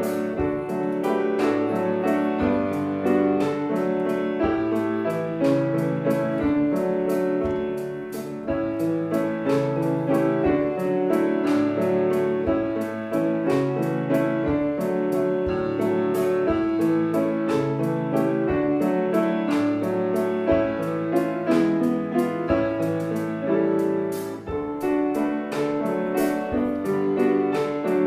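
Piano music played as an offertory: a steady flow of struck notes and chords.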